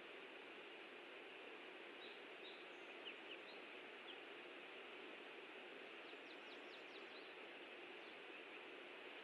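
Steady, faint outdoor background noise with a few faint, high bird chirps about two to three seconds in and a quick run of chirps about six seconds in.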